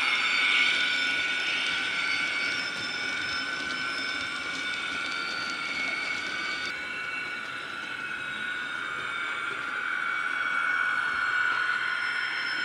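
Heljan ES1 model electric locomotive's DCC sound decoder playing through the model's small speaker: a steady electric-loco whine made of several held tones. It softens through the middle and rises again near the end, and the higher tones change about seven seconds in.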